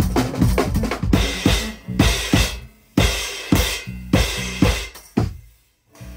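Live drum kit and electric bass playing a choppy groove: hard kick, snare and hi-hat hits punctuated by short bass notes. The band drops out briefly about halfway and again near the end.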